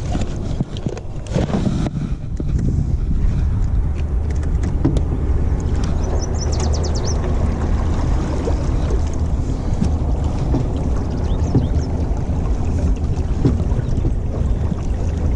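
Small aluminium boat running across a lake: a steady low motor hum with water washing along the hull. Knocks and clicks of gear being handled in the first couple of seconds.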